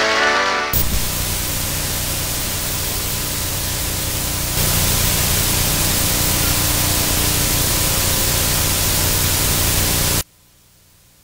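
Loud, steady static hiss with a faint low hum beneath it. It starts abruptly just under a second in, gets louder about four and a half seconds in, and cuts off sharply about ten seconds in, leaving a faint hiss.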